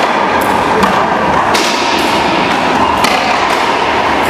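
Racquetball rally: the rubber ball smacking off racquets and the court walls, four sharp hits at uneven intervals over a steady background hiss.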